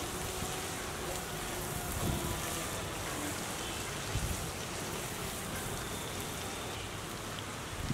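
Food sizzling steadily in a hot pan, with a few soft knocks.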